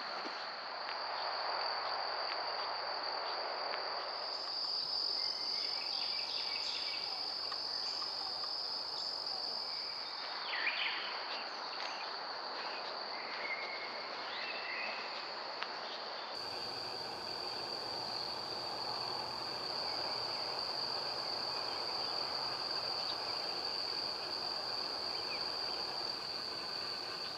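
Insects keep up a steady, high-pitched buzz. A few short bird chirps come through around the middle.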